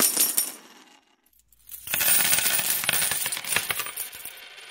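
Intro sound effect of rapid, bright metallic jingling and clinking, like a shower of coins, in two bursts: the first fades out within the first second, the second starts about two seconds in and tapers off near the end.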